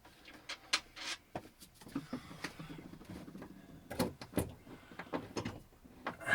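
Scattered small clicks, taps and knocks of hand work: screws, a clamp and a wire basket being handled while the basket is fastened to the wall.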